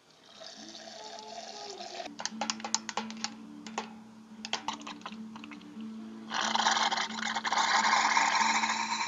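Ice cubes clink and knock into a glass in quick succession. Then, a few seconds later, carbonated water hisses into the glass from a dispenser for about three seconds and stops as the supply of carbonated water runs out.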